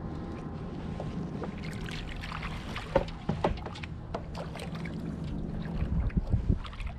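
Small baitcasting reel being wound in over wind and water noise around a kayak. A few sharp knocks come about three seconds in, and heavy low thumps come near the end as the catch is lifted.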